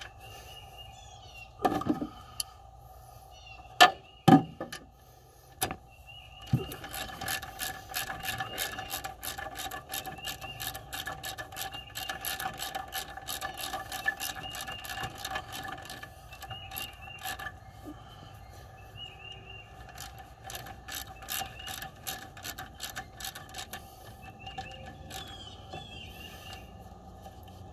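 Hand ratchet with an extension clicking in quick runs as it turns an alternator mounting bolt, after a few sharp metal knocks in the first several seconds.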